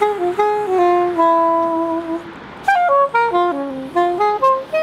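Soprano saxophone playing an unaccompanied melodic line. A few notes lead into one long held note, and after a short pause about two seconds in comes a quick run of notes stepping down and then back up.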